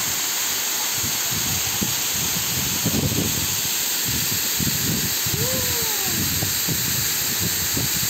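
Waterfall: a thin stream of water falls down a rock face and splashes into a pool with a steady, even hiss of falling water and spray.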